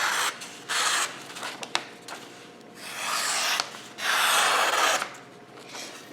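Kitchen knife slicing through paper in about four short, hissing strokes. The edge is freshly honed on an Arkansas soft stone and cuts with almost no resistance.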